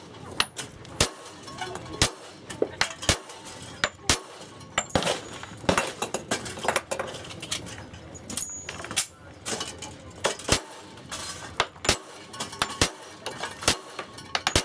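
A string of gunshots, about one a second, fired at steel plate targets, with the metallic ring of hit steel between shots.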